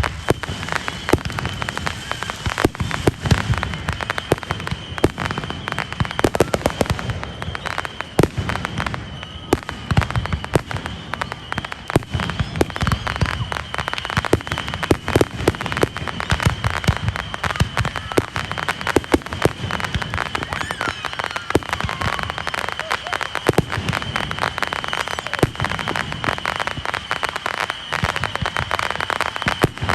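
Fireworks going off in quick succession: a continuous run of bangs and crackling pops, several a second, with no break.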